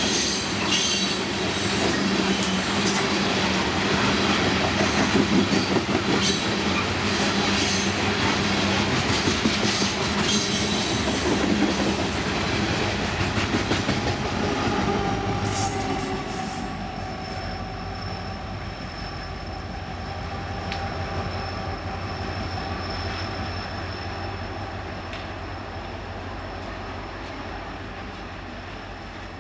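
A train rolling past on the rails, its wheels rumbling and squealing with thin high-pitched tones. About halfway through it fades away to a quieter steady rumble.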